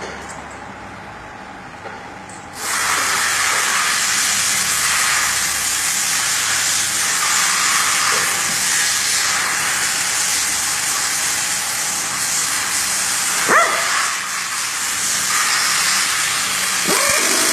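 A loud, steady hiss starts abruptly about two and a half seconds in and runs on, with two short rising squeaks near the end.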